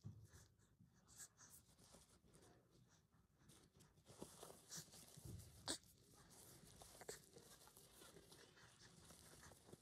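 Near silence: faint rustling of a disposable diaper and bedding being handled, with a soft thump at the start and a few light clicks, the sharpest just over halfway through.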